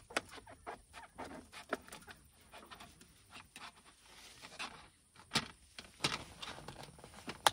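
Irregular small clicks, taps and rustles of hands and tongs handling king oyster mushroom pieces on a cutting board, with a few sharper knocks in the second half.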